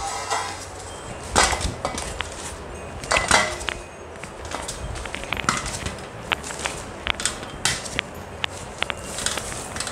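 Cardboard box and straw packing rustling as mangoes are lifted out by hand, with light knocks and clicks as the fruit is set down in a steel plate, coming more often in the second half.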